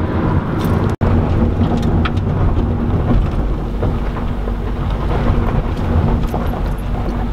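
Car road noise heard from inside the cabin: tyres rumbling over a gravel road, with a steady low hum and scattered small ticks. The sound cuts out for an instant about a second in.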